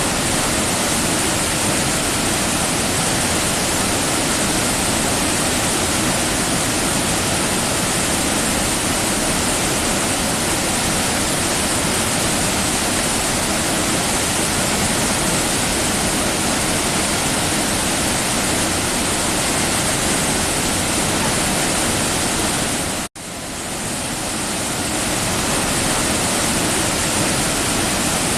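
Waterfall: a steady, loud rush of falling water. About 23 seconds in the sound cuts out for an instant and then swells back.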